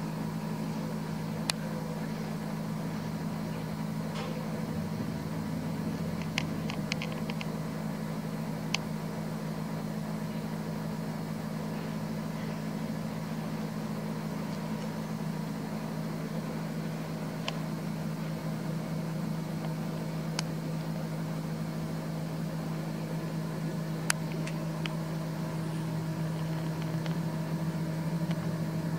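A steady low mechanical hum with a few faint clicks here and there.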